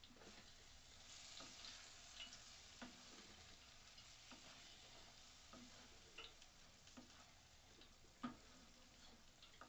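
Faint frying sizzle from a thick onion-tomato masala being stirred and scraped around a nonstick pan with a wooden spatula, with irregular soft knocks of the spatula against the pan, the sharpest about eight seconds in. The masala is fried down to the point where it is starting to release its oil.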